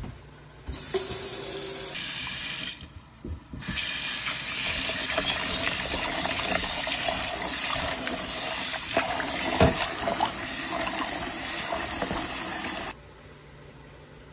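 Kitchen tap water pouring into a bowl of raw meat chunks as they are rinsed and rubbed by hand, with splashing and small knocks. The water stops briefly about three seconds in and cuts off sharply near the end.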